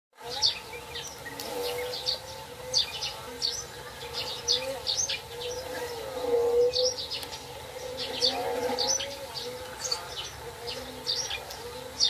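Small birds chirping in rapid, repeated short calls, over a buzzing insect whose pitch wavers up and down.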